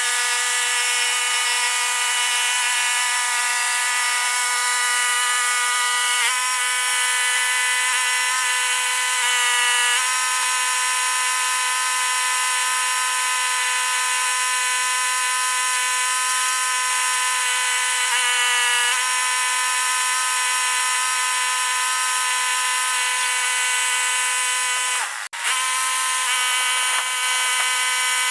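Hydraulic lifting rig on a container delivery truck whining steadily as it lowers a loaded portable storage container to the ground. The pitch shifts slightly a few times, and the sound breaks off for a moment near the end.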